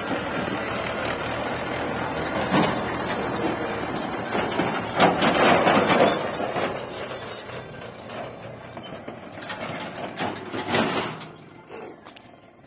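Mahindra diesel tractor pulling a loaded trailer trolley over rough dirt: engine running and trolley rattling, with louder bursts as it moves off, then fading as it pulls away near the end.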